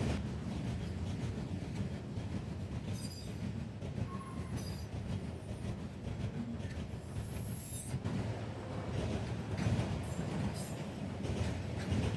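Auto rack freight cars rolling past at close range: a steady rumble of steel wheels on rail, with faint high-pitched wheel squeals coming and going a few seconds in and again past the middle.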